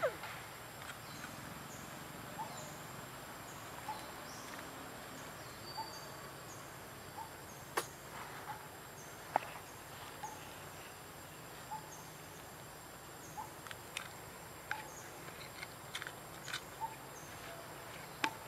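Outdoor forest ambience: a steady background with a short call repeating about every one and a half seconds, from a bird or insect, and a few scattered sharp clicks, the loudest about eight and nine seconds in.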